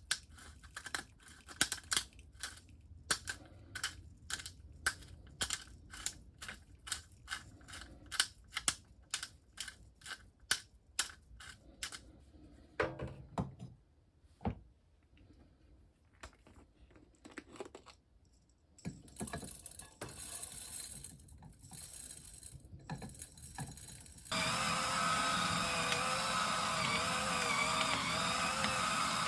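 Camping gas single burner: its igniter clicks over and over, about two or three clicks a second, with scattered handling knocks. Near the end the burner catches with a sudden, steady, loud hiss that wavers in pitch. The stove is hard to light in strong wind.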